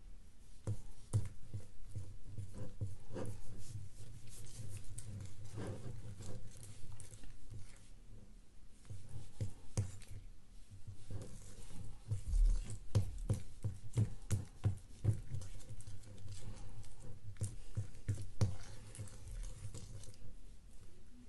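Freshly activated glue slime being stirred and folded with a plastic spoon in a ceramic bowl: a steady stream of irregular sticky clicks and small wet pops.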